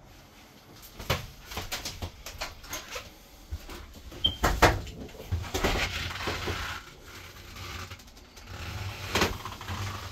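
Handling and movement noise in a small room: scattered knocks and clicks, a brief high squeak, and a louder thump about four and a half seconds in.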